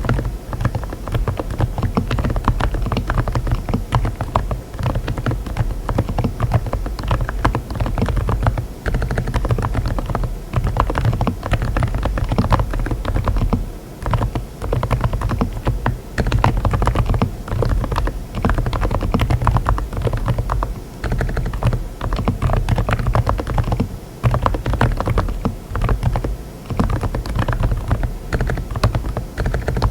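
Rapid, continuous typing on a mechanical keyboard fitted with Saebyeok silent tactile switches (40 gf), a dense run of keystrokes broken by a few brief pauses.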